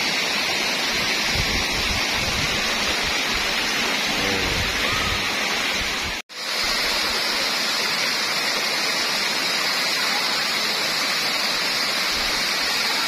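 Curug Cijalu waterfall's falling water rushing as a steady, even noise, with a brief cut-out about six seconds in.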